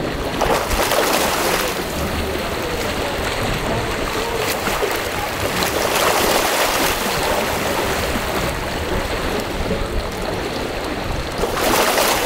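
Pool water splashing and churning as a swimmer swims breaststroke, growing louder with each stroke surge, around a second in, midway, and near the end.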